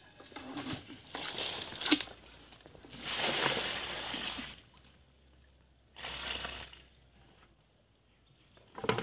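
Muddy pond water splashing and sloshing as fish are caught by hand, in a few separate bursts, the longest lasting over a second about three seconds in.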